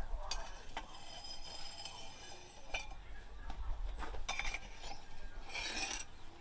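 Steel knife blank forged from rebar clinking against a steel post anvil as it is shifted and set down: a few light, separate metallic clinks, more of them close together near the end.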